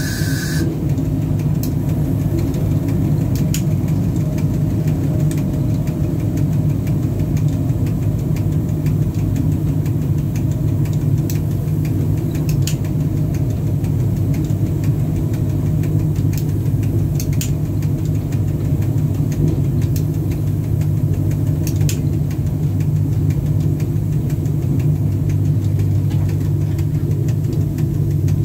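Steady low rumble inside the cab of a VL10 electric locomotive running along the line, with a few sharp clicks scattered through it.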